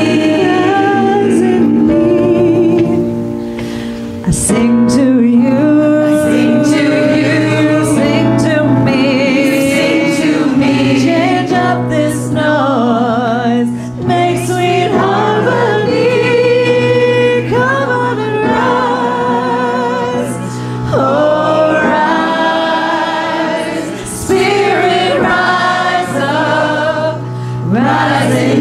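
Mixed church choir singing a gospel-style song in phrases of a few seconds, over a steady held low note in the accompaniment.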